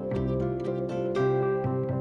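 Background music: gentle plucked-string notes, harp- or pizzicato-like, over a steady low bass.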